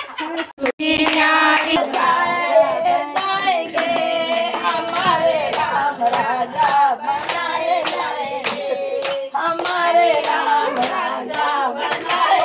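Group of women singing a Hindu devotional bhajan with rhythmic hand clapping, about two claps a second.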